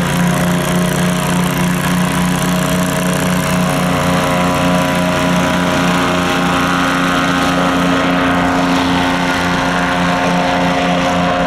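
SM-440 airboat's aero-unit engine and propeller running steadily under a full load, holding a constant pitch with no revving.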